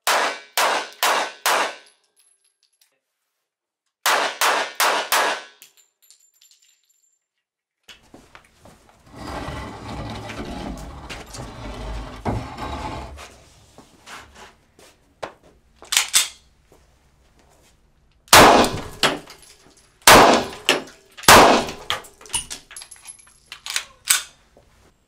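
Handgun shots firing 9mm full metal jacket rounds in two quick strings of four. A stretch of scraping and bumping follows as a large wall panel is handled and moved. Near the end come several more single shots, 9mm and .45 ACP, fired into cinder blocks.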